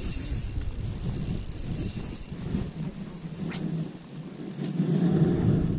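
Fishing reel clicking rapidly as a hooked trout that is putting up a fight is played and reeled in.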